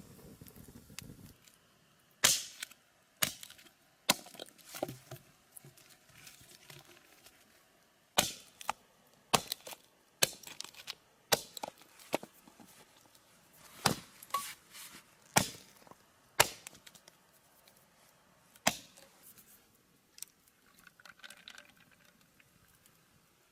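Chopping against wood: a run of sharp, irregular knocks, roughly one every second, that stop a few seconds before the end.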